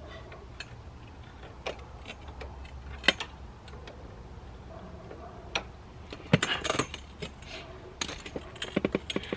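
Hand tools and metal engine parts clicking and clinking as someone works on a 2009 Honda Recon ATV engine: scattered single knocks, then a quicker run of clicks in the last couple of seconds.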